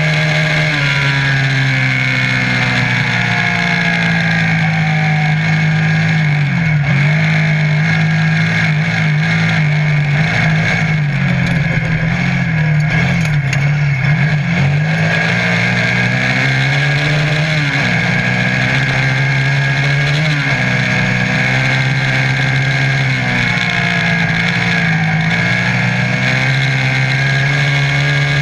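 Off-road buggy's engine running hard at speed, heard from on board; the engine note dips briefly several times and climbs back up as the throttle eases and opens again.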